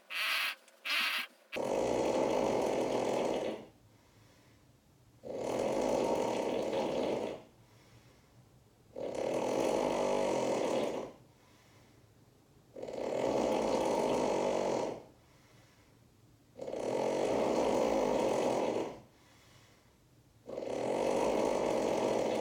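A person snoring, six long snores about every four seconds, with two brief short sounds just at the start.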